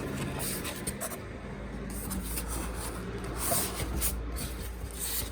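Paper and cardboard rustling and scraping in irregular spells as paperwork and packing are handled and slid back into a model locomotive's box.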